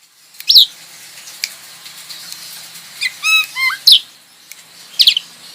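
Starlings (jalak) calling: sharp whistled calls that sweep in pitch, spaced a second or more apart, with a quick run of several chirps a little past halfway, over a faint low hum.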